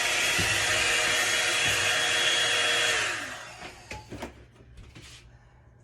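Electric hot air brush (hair dryer brush) blowing steadily with a motor whine, switched off about three seconds in, its whine falling as the fan winds down; a few faint handling clicks follow.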